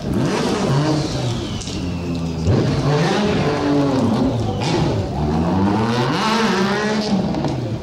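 Sport motorcycle engine revving hard several times, its pitch rising and falling in long sweeps.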